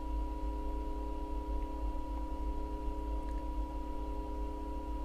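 A steady electronic hum with a thin higher whine, holding an even level with no change in pitch.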